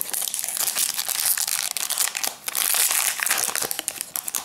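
Foil Pokémon trading-card booster pack wrapper crinkling and tearing as it is pulled open by hand. A dense, steady crackle has a brief lull about halfway through.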